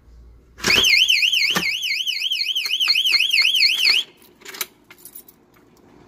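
Battery-powered panic-bar exit alarm sounding: a loud, high electronic warble sweeping up and down about four times a second. It starts with a knock about a second in and cuts off suddenly after about three seconds, followed by a few light clicks. The alarm is working again on a fresh 9-volt battery.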